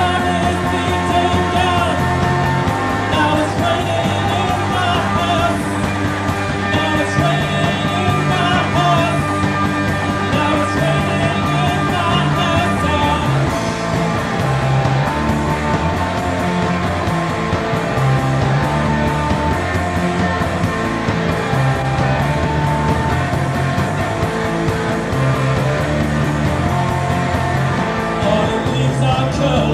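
Rock band music: electric guitars over a repeating bass line and drums, played continuously.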